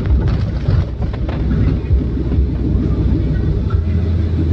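Car driving on a rain-wet road: a steady low rumble of engine and tyres with a hiss of spray, and a few short clicks in the first second and a half.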